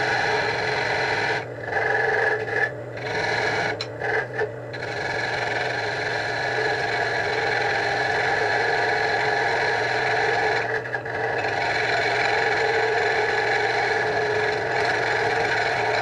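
Wood lathe running while a parting tool cuts into the spinning wooden spindle, sizing a tenon: a steady scraping hiss over the lathe's hum. It breaks off briefly several times in the first few seconds and once more later.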